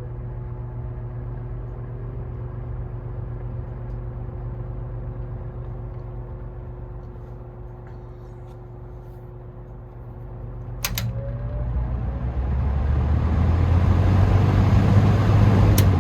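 Air King PL20P box fan with its Westinghouse motor running on low speed: a steady motor hum with air noise. About eleven seconds in there is a click, after which the sound grows louder, and another click comes near the end.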